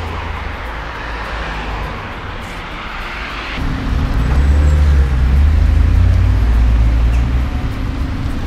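Road traffic passing close by: cars and vans driving past with tyre hiss, then from about three and a half seconds in a louder, steady low engine rumble from the passing vehicles.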